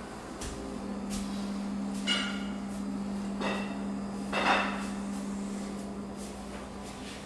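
A few ringing clinks and clatters of kitchenware, about two seconds in and twice more over the next few seconds, the last the loudest, over a steady low hum.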